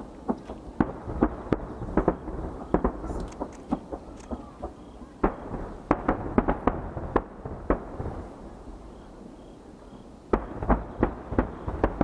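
Aerial firework shells bursting, many sharp bangs in quick irregular clusters over a low echoing rumble. A short lull about two-thirds of the way through is followed by a fresh cluster of bangs near the end.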